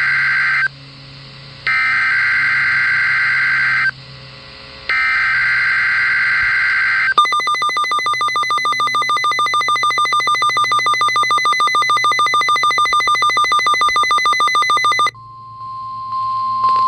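Emergency Alert System SAME header, three short bursts of warbling data tones, received on a WeatherX RWB8817DT weather radio, which then sounds its alert with rapid pulsing electronic beeps for about eight seconds. Near the end a steady single tone of about 1 kHz begins, the NOAA Weather Radio 1050 Hz warning alarm tone.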